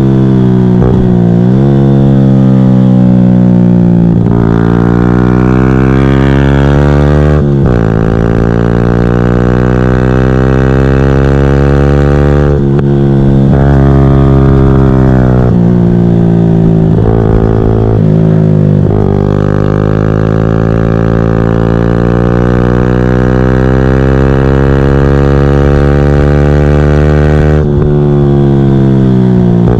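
Yamaha YZF-R125's single-cylinder 125cc four-stroke engine, breathing through an open GPR Furore full exhaust with no catalyst or baffle, revving hard as the bike is ridden. The pitch climbs through each gear and breaks off with a quick shift several times, falling and rising again as the bike slows and picks up through bends.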